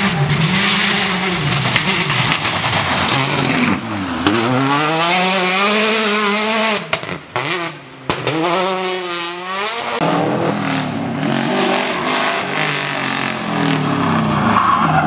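Rally car engine revving hard, its pitch climbing and falling several times as it shifts gear and lifts off. The level dips briefly about seven seconds in, before it pulls again. Tyre and gravel noise runs under the engine.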